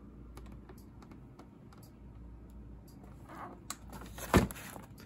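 Cardboard boxes of fireworks being handled: scattered light taps and scuffs, with one sharper knock about four seconds in.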